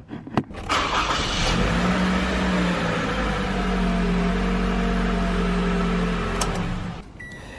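2012 Toyota Camry's engine started with the key: a couple of clicks, a brief crank of under a second, then it catches and runs at a steady idle until the sound cuts off near the end.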